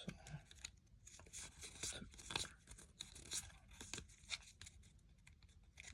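Foil Pokémon TCG booster pack wrapper being torn open and crinkled by hand: faint, scratchy rustling in a string of short bursts.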